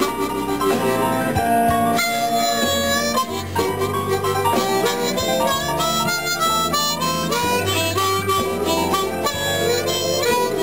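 Blues harmonica played cupped against a handheld microphone, with held and bending notes, over a recorded blues backing track in E with guitar and a pulsing bass line.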